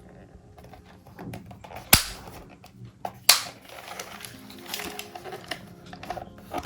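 Plastic clicks and knocks from handling a compact wireless keyboard, with two sharp, loud clicks about two and three and a quarter seconds in and smaller ticks between, over faint background music.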